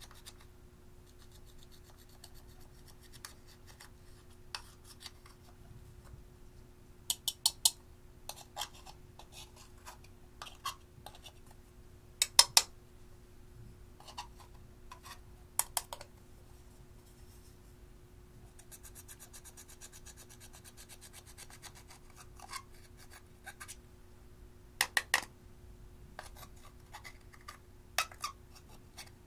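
Small metal spatula scraping pressed eyeshadow out of a plastic palette's pans, breaking the powder into crumbs, with sharp clicks, often in quick pairs or threes, as the tool knocks against the palette.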